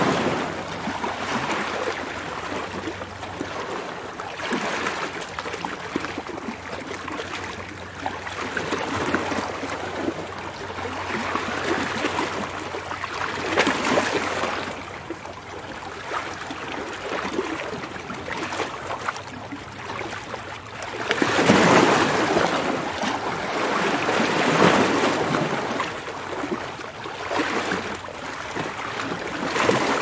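Ocean surf: waves breaking and washing in, a rushing hiss of water that swells and fades every few seconds, with the biggest surge about two-thirds of the way through.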